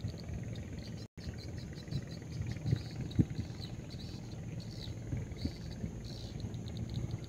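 Outdoor riverside ambience: wind rumbling and buffeting on the microphone under a rapid, high chirping of insects or birds. The sound drops out for an instant about a second in.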